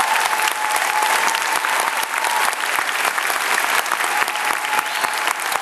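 Audience and choir applauding at the end of a song, dense, steady clapping.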